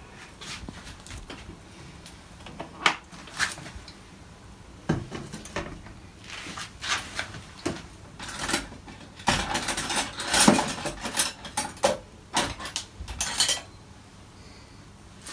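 Kitchen dishes and utensils clinking and knocking as they are handled, in scattered strikes that become a busier clatter past the middle.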